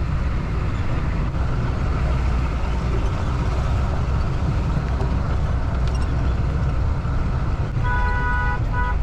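Jeep running on a rough mountain dirt track: a steady low engine and road rumble. Near the end a vehicle horn sounds in short repeated blasts.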